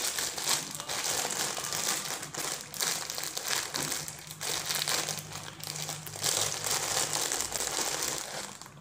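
Thin plastic bread bag crinkling and rustling as it is fingered and worked open; the crinkling stops just before the end.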